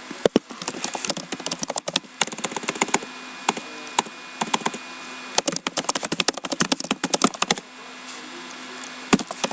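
Rapid, irregular clicking and tapping in clusters, with a steady low hum underneath. The clicks pause briefly near the middle and again shortly before the end.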